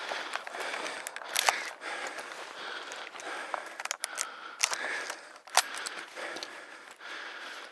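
Close rustling and scraping as a handheld camera is carried and moved about, with a few sharp clicks about one and a half, four and a half and five and a half seconds in.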